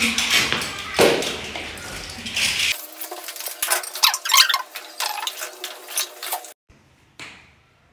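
A metal serving spoon scraping and clinking against a metal pot and a metal tray as cooked rice is scooped out and spread. The clinks come irregularly and cut off about a second before the end.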